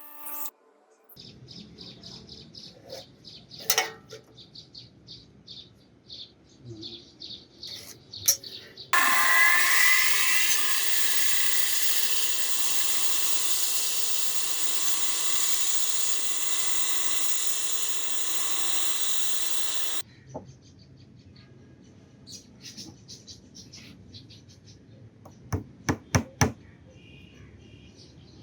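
A power tool runs steadily for about eleven seconds, starting about a third of the way in. Before it come quieter repeated working strokes, and near the end a run of sharp knocks.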